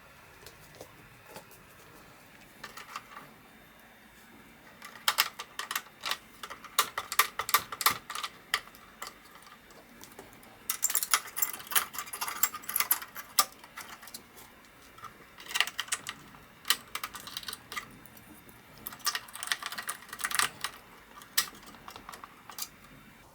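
Four bursts of rapid, irregular clicking and clattering, with quieter stretches between: small hard parts being handled during work on a PC-9821An computer.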